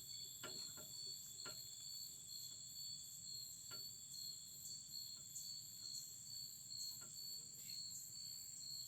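A chorus of insects by the river, a steady high-pitched chirring at several pitches, one of them finely pulsing, with a few faint clicks.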